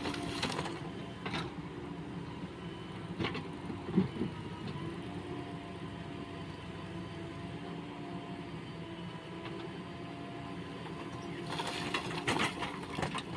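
Heavy-machinery diesel engine running steadily, with scattered metal knocks and clanks. The sharpest knock comes about 4 s in, and a burst of clattering comes near the end.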